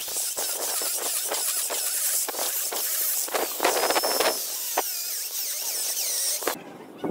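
Angle grinder fitted with a core bit boring holes into a stone floor: a high-pitched motor whine over gritty grinding, cutting off about six and a half seconds in.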